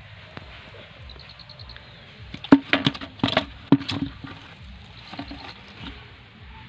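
Freshly caught fish flapping in a plastic bucket with a little water, giving a quick cluster of thumps and wet slaps against the bucket. It starts about two and a half seconds in and lasts under two seconds.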